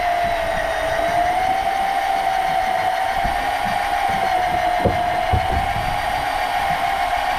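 Electric deep-drop fishing reel's motor whining steadily at one slightly wavering pitch as it winds a line loaded with fish up from the bottom. A couple of low knocks about five seconds in.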